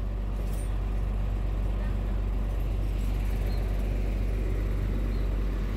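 Intercooled diesel engine of a Mercedes-Benz OH1521 coach idling steadily, an even low hum.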